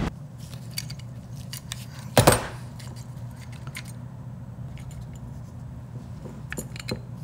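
Small metal Dellorto carburettor parts clinking and clicking as they are handled on the bench, with one louder clatter about two seconds in. A steady low hum runs underneath.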